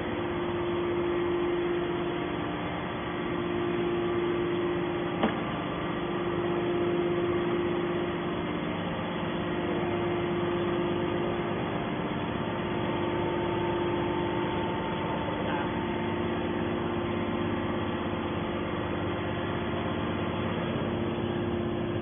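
Hydraulic scrap metal baler's power unit running steadily at idle, a constant machine hum with one strong steady tone. A single sharp click about five seconds in.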